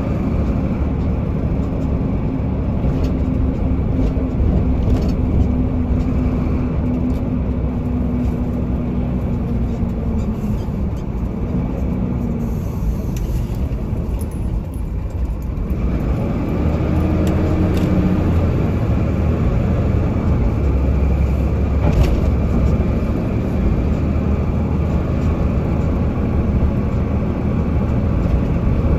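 Vehicle engine and road noise from inside the cab while driving, a steady low rumble. The engine hum eases off about ten seconds in, dips lowest around the middle, then picks up again and grows louder a few seconds later as the vehicle gets going again.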